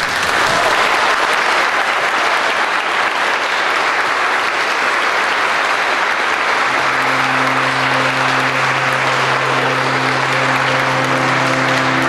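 Church congregation applauding the couple just pronounced married. About seven seconds in, music with steady held low notes starts under the applause, and more notes join near the end.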